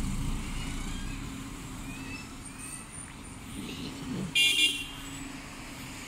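City street traffic running, loudest in the first second or so as a bus goes by. About four and a half seconds in, a short, sharp burst stands out.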